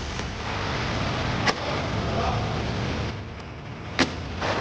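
Old vinyl wrap film being peeled off a car's body panels: a steady rough tearing noise, broken by two sharp clicks about one and a half and four seconds in.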